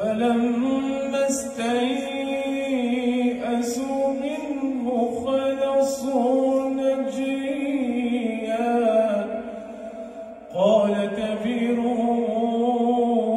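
A male reciter chanting the Quran in a slow, melodic tajweed style, holding long, ornamented notes. The chant fades into a short pause about ten seconds in, then comes back in louder.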